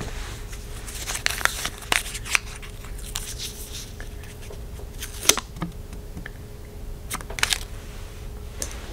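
A small folded paper slip drawn from a jar being unfolded between the fingers: a scatter of short paper crinkles and rustles.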